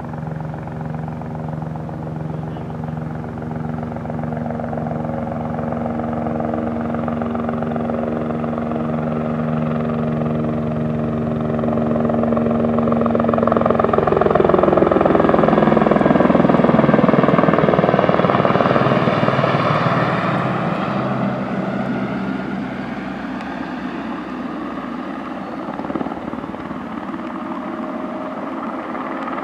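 Aérospatiale AS350 B Écureuil helicopter's turbine and rotor running as it flies in, passes close overhead about halfway through with its pitch dropping, loudest just after, then fades somewhat as it flies away.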